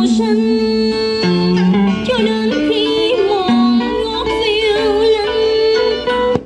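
Sharp WQ-T281 stereo radio cassette recorder playing music through its speakers: a singer's wavering melody over instruments. It cuts off abruptly near the end.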